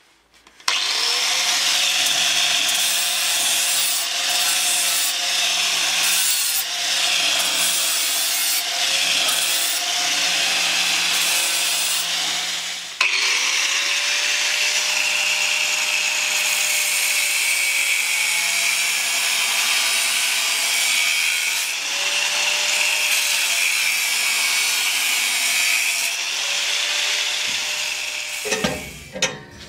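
Angle grinder working sheet steel: a continuous harsh grinding over a steady motor hum, with a brief dip about halfway through, stopping shortly before the end.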